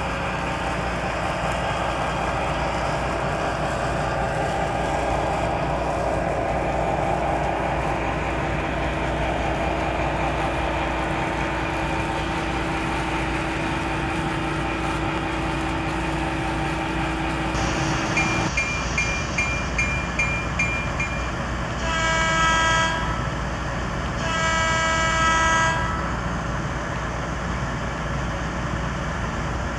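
Sound-equipped N scale EMD E8 model diesel locomotive playing its recorded diesel engine sound steadily. About 18 s in a bell rings for about three seconds, then the horn sounds two separate blasts.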